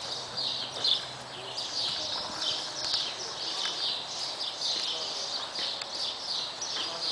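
Two horses walking on soft arena dirt, their hoofbeats faint. Over them, birds keep up a high, repeated chirping.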